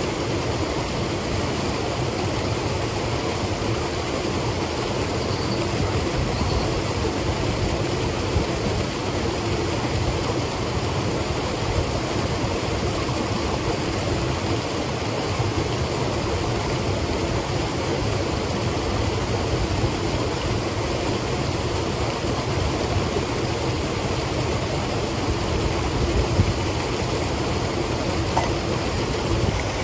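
Steady rushing of a nearby mountain stream, an even noise with no breaks.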